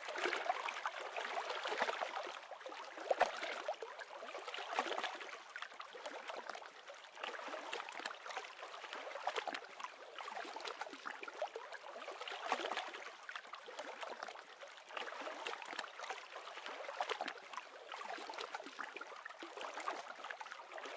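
Gentle water lapping and gurgling as small ripples move across the surface, an uneven wash that swells and eases irregularly.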